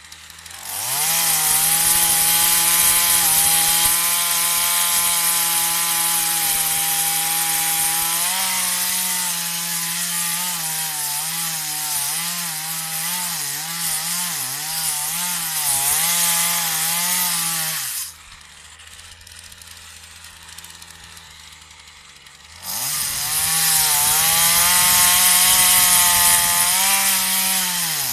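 Partner 340S two-stroke chainsaw revving from idle to high speed about a second in and holding there, its pitch wavering up and down from about eight seconds. It drops back to idle at about eighteen seconds, then revs up to high speed again.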